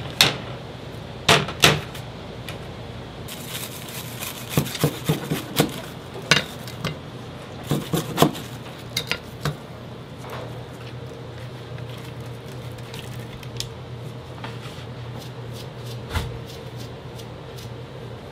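Dishes and a metal wire rack knocking and clattering on a stainless-steel counter: a run of sharp knocks through the first half, then only occasional taps, over a steady low hum.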